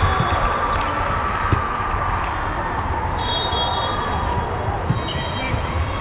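A ball bouncing a few times on a hardwood gym floor, over a steady din of voices and movement in a large echoing sports hall.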